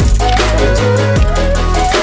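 Background music with deep sustained bass notes, a drum beat and a repeating melody line.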